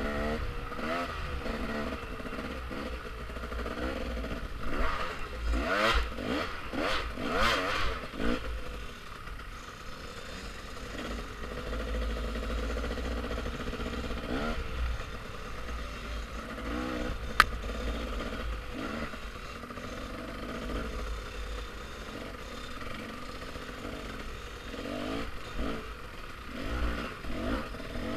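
Dirt bike engine running on a trail ride, rising and falling in pitch as the throttle is opened and closed, with rattling from the bike over rough ground. A single sharp knock comes about two-thirds of the way through.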